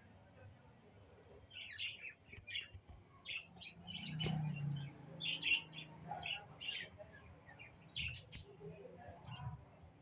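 Budgerigars chirping: a run of short, high chirps, several a second, starting about a second and a half in.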